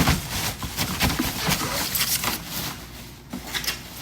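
Cardboard box and packaging being handled and pulled apart: an irregular run of rustles, scrapes and light knocks that grows quieter near the end.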